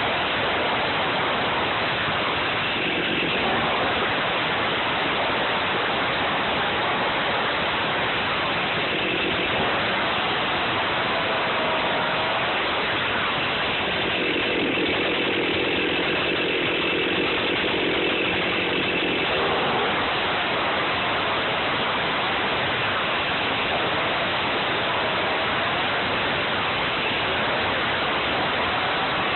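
Stihl MS261 C two-stroke chainsaw running right at the microphone as it cuts limb wood, its note shifting as it goes in and out of the cuts, with a deeper stretch of about five seconds around the middle.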